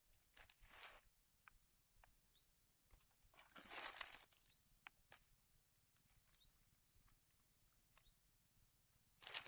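Faint rustling and crunching, loudest about four seconds in and again near the end, with a small bird giving short high calls, each a quick downward-sweeping note, about five times.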